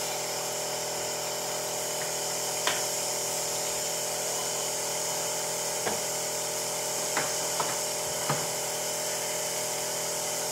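Capsule coffee machine's pump buzzing steadily as it brews into the cup, with a few light clicks and clinks of the cup and machine.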